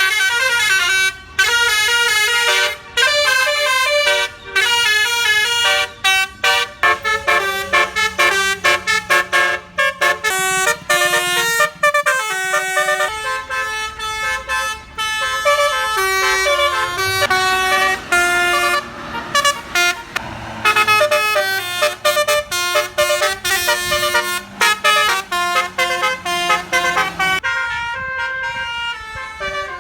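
Bus's Basuri telolet musical air horn playing a fast melody of stepped horn notes, over a faint low engine hum.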